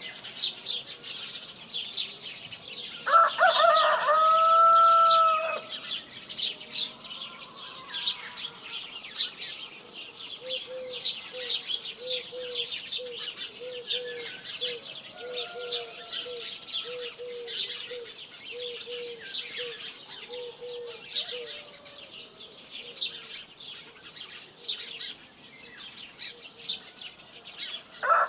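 Many small birds chirping continuously, with a rooster crowing once, long and loud, about three seconds in. From about ten to twenty seconds a chicken clucks in a run of short low notes, nearly two a second, and a second crow begins right at the end.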